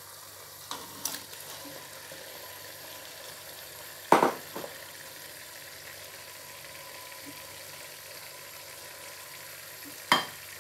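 Blended tomato and pepper stew frying steadily in oil in a pot while pieces of cooked meat are added, with several sharp knocks against the pot, the loudest about four seconds in and another near the end.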